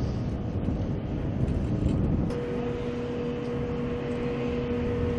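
Jet airliner noise on an airport apron: a low rumble, with a steady two-note hum coming in about two seconds in.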